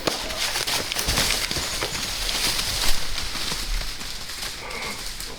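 A sharp smack right at the start as the bow shot hits, then a whitetail buck crashing away through dry leaves and brush, hooves thudding and scattering leaves, with a louder knock about three seconds in, fading as it runs off.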